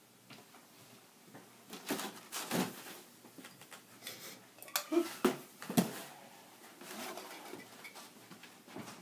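Scattered knocks and clatters of household handling as a cardboard box is picked up and carried off, with footsteps; the sharpest knocks come about five to six seconds in.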